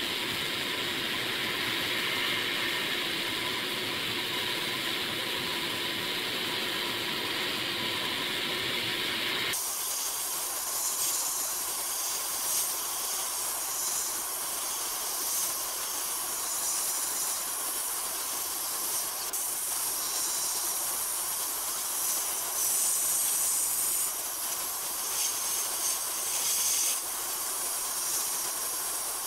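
Sandblasting cabinet nozzle hissing steadily as aluminum oxide media blasts old paint off a Duncan parking meter's cast housing. About ten seconds in the hiss turns abruptly brighter and thinner.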